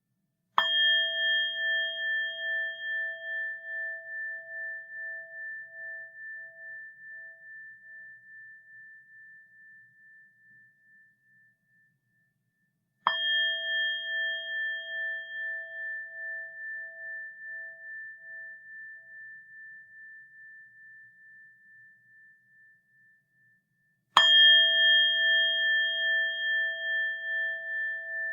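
Buddhist rin, a metal bowl bell, struck three times about eleven seconds apart; each strike rings on in a long, slowly fading tone with a steady wavering pulse in its loudness, the highest overtone dying away first.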